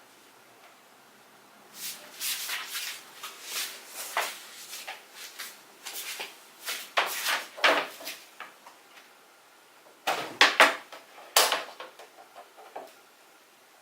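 Hands handling and setting things down: a run of irregular clicks, knocks and rustles, loudest a little after ten seconds in.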